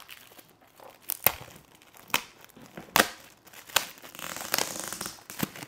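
Shiny metallic foil gift wrap crinkling and tearing as a small present is unwrapped by hand: sharp crackles about once a second, then a longer stretch of continuous crinkling about four seconds in.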